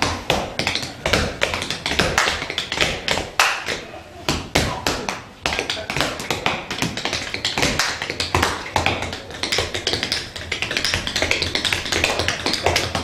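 Tap shoes striking the floor in fast, rhythmic tap-dance patterns, with a short softer lull about four seconds in before the steps pick up again.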